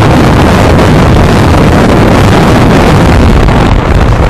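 Loud, steady wind rush battering the microphone of a motorcycle-mounted camera at highway speed, about 136 km/h.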